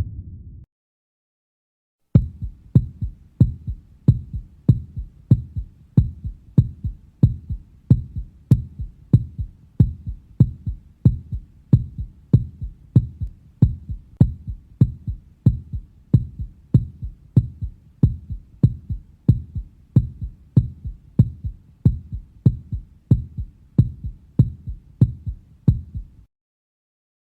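Heartbeat sound effect: a steady, regular run of low thuds that starts about two seconds in after a silent gap and stops shortly before the end.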